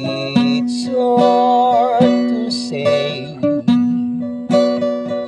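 An acoustic guitar is strummed in slow chords while a man sings. About a second in he holds one long note with vibrato.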